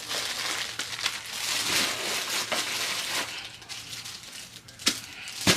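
Plastic packaging rustling and crinkling as small kit items are handled, then two sharp knocks near the end.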